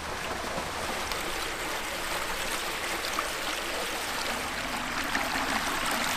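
Splashing water from small fountain jets falling into a concrete basin and running down a shallow concrete channel: a steady splashing and babbling, a little louder near the end.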